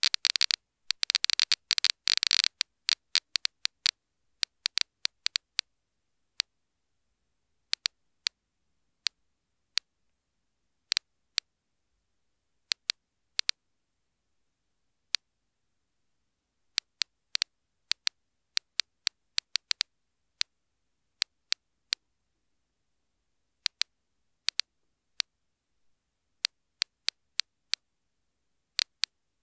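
Soviet DP-66 Geiger counter clicking as it measures a 1970s camera lens. For the first two seconds or so the clicks come in a dense, rapid crackle from strong radiation. They then thin to sharp, irregular single clicks, a few a second at most with pauses of a second or more between them, at a medium radiation level.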